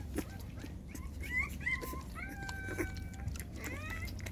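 Nursing puppies whimpering: a few short squeaks, then a longer held whine about two seconds in, then rising squeals near the end.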